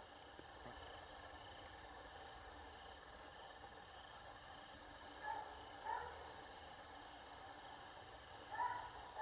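Night insects chirping in a steady, regular pulse over a constant high trill. A couple of faint barks from coonhounds a couple of hundred yards off come about five and six seconds in, and another starts near the end.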